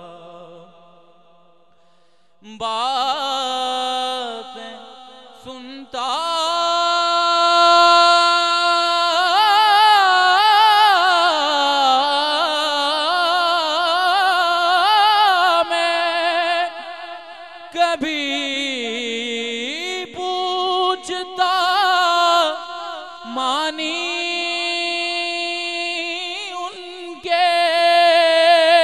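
A man's voice singing a naat through a handheld microphone, drawing out long wavering melismatic notes. A brief lull comes in the first two seconds, then the singing carries on loudly.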